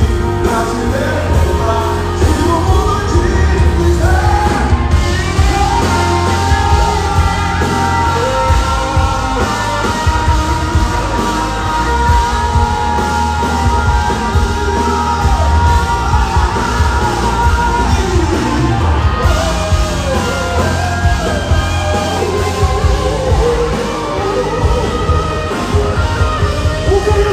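Live band and singers performing a Brazilian gospel song through a concert PA, loud with heavy bass, with a long held note through the middle.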